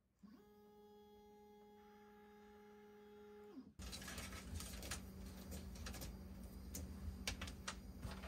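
A faint steady pitched hum for about three seconds that glides up as it starts and drops away as it ends. Then hands handle a grounding wire at the CNC gantry's plastic drag chain, making rustling and small irregular clicks.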